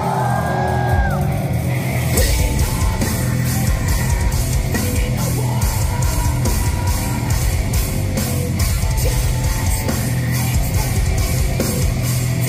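Metal band playing live in a concert hall: distorted guitars, drums and vocals, with the full band and a steady drum beat coming in hard about two seconds in.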